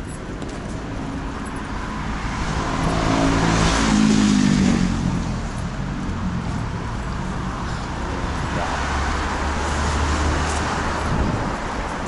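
City street traffic. A motor vehicle passes close about three to five seconds in, its engine note falling as it goes by. A lower engine rumble swells again near the end.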